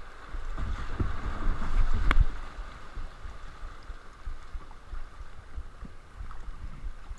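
River water rushing past a kayak as it is paddled, with wind rumbling on the camera microphone. The water and rumble swell in the first couple of seconds, and a single sharp knock comes about two seconds in.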